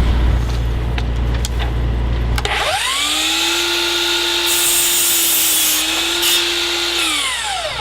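DeWALT FlexVolt DHS790 12-inch miter saw running on its batteries: the motor whine rises as the blade spins up about two and a half seconds in, holds steady while the blade cuts through wood, then falls away as the saw winds down near the end.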